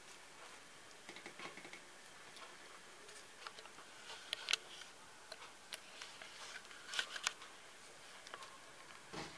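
Faint, irregular small clicks and taps, with a few sharper ones about four and a half and seven seconds in and a duller knock near the end.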